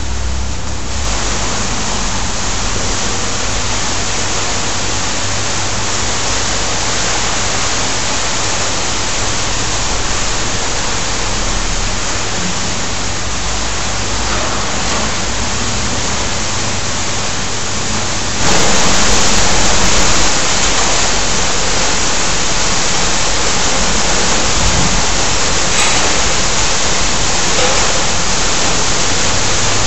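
Burning sparklers giving off a steady, even fizzing hiss, which steps up in loudness about eighteen seconds in.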